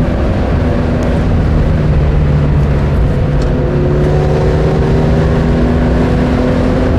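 Mitsubishi Lancer Evolution MR FQ-360's turbocharged four-cylinder engine pulling hard at speed, its note rising slowly, heard from inside the cabin over loud tyre and wind noise.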